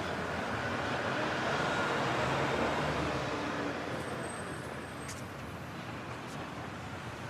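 Road traffic noise: a passing vehicle that swells to a peak about two and a half seconds in, then fades back into the steady traffic hum.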